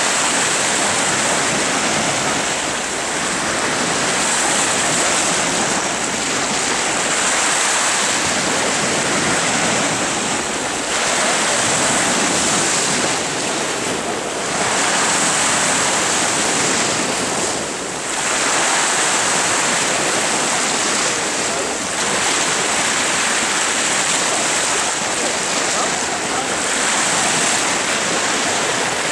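Sea surf washing in below the rocks: a steady rush of water that swells and eases every few seconds.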